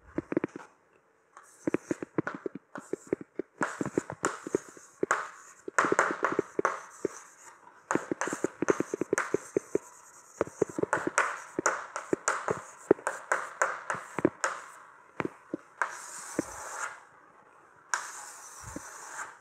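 Chalk writing on a blackboard: quick taps and scratches of the chalk as letters are written, with two longer scraping strokes near the end.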